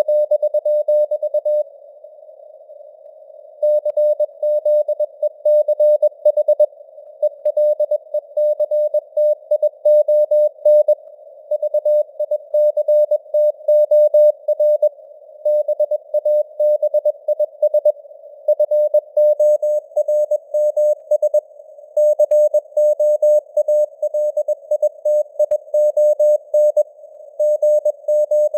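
Morse code (CW) sent at 21 words per minute: a single tone near 600 Hz keyed on and off in dots and dashes, with short pauses between words. It sits in a narrow band of hiss, simulated receiver noise, and its strength fades up and down (simulated QSB).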